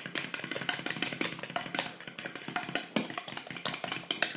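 A metal fork beating eggs and crème fraîche in a glass bowl: a quick, steady run of clinks and wet tapping as the fork strikes the glass several times a second.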